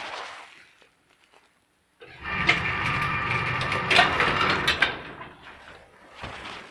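A small mechanism runs for about three seconds, a steady pitched hum with clicks, then stops; it is the old machine just declared working after repair.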